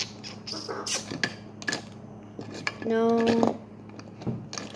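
Markers clicking and rattling against each other and their cup as a hand rummages through it: a series of sharp separate clicks. A drawn-out spoken "No" comes about three seconds in.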